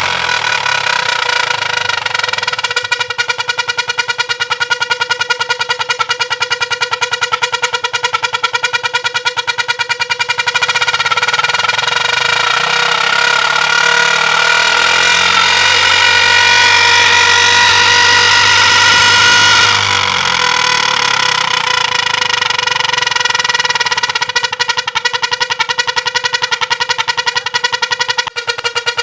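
Hero motorcycle running with a modified exhaust silencer that gives a steady, high, many-toned whine like an aircraft over the fast pulsing of the engine. The engine note changes and holds higher for several seconds in the middle, then settles back.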